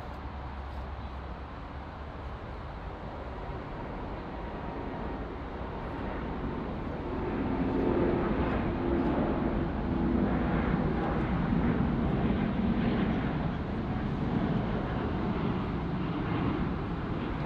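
Large jet airliner's engines passing by, the noise swelling about halfway through and staying loud, with a hum in it that drops in pitch as it goes past.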